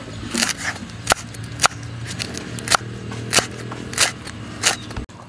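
Chef's knife chopping kaffir lime leaves on a wooden chopping board: about eight sharp knocks of the blade on the wood at an even pace, roughly three every two seconds.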